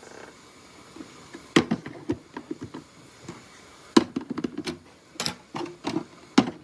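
Small bottles and jars being set down and shifted on fridge shelves: a series of sharp clicks and knocks with light rattling in between.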